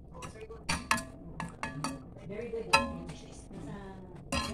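A cooking utensil stirring pork liver in sauce in a metal pan, clinking and scraping against the pan in a series of sharp, irregular clinks, the loudest about three-quarters of the way through.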